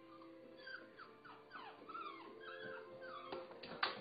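Labrador whimpering: a run of short high whines, several a second, each falling in pitch. Near the end come a few sharp knocks as a dog's paws land on the stairs.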